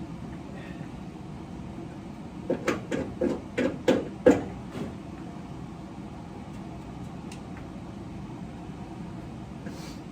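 A quick run of knocks and clicks, with the loudest about four seconds in: hard parts being handled and knocked against each other while a car door's mirror and gasket are taken off.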